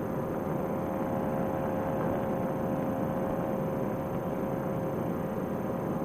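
Two-stroke engine and propeller of a Fresh Breeze Monster paramotor trike running steadily in cruising flight, a constant drone that does not change in pitch.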